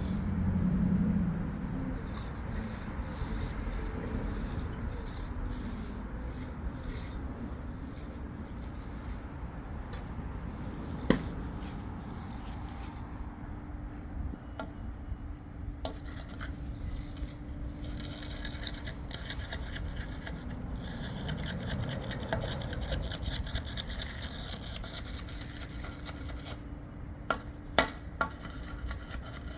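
Hand finishing tool on fresh concrete, rubbing and scraping across the surface with a steady rasp, with a few sharp knocks about a third of the way in and twice near the end.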